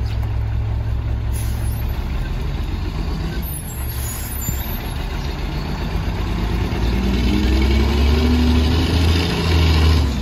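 Mack MR rear-loader garbage truck's diesel engine idling, then about seven seconds in revving up with its pitch climbing as the truck pulls away, the engine note dropping back briefly near the end.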